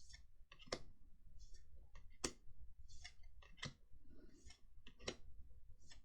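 Trading cards being flipped through one at a time: a soft sliding rustle of card against card, and a sharp snap about every second and a half as each card is moved to the back of the stack, four snaps in all.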